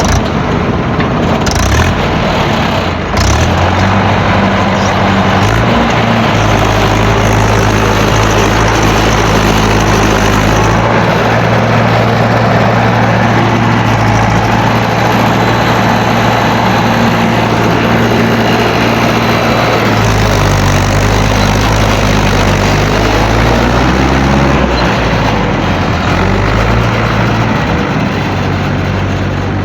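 JCB backhoe loader's diesel engine running under load as it works the hydraulics, holding a steady pitch for long stretches and rising and falling in the last third. A short knock about three seconds in.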